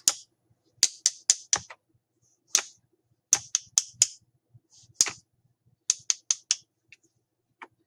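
Two wooden rhythm sticks, plain sticks from nature, tapped together in short groups of sharp clicks, about four quick taps to a group with pauses between.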